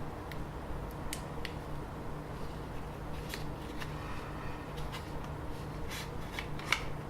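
Scattered small clicks and taps of a caliper being slid and set against the edges of a pocket computer to measure it, the sharpest click near the end, over a steady low hum.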